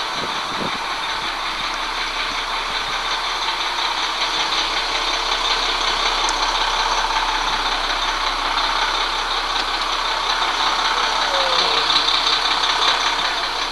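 Fire engine idling, a steady engine drone that grows a little louder about four seconds in.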